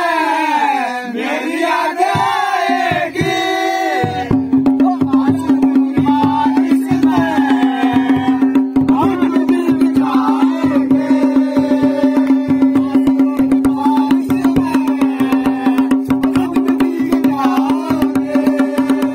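A group of men singing a Holi folk song together. About four seconds in, a barrel drum starts up in a fast, even beat under a steady held tone, with the voices carrying on over it.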